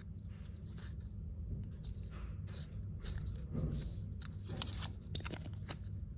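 Scattered light clicks and crinkles from a foil-backed plastic blister strip of softgel capsules being handled and turned over, over a steady low hum.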